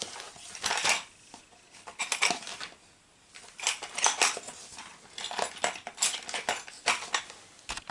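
Small metal screwdriver bits clinking and rattling in about four short bursts as they are handled and sorted through.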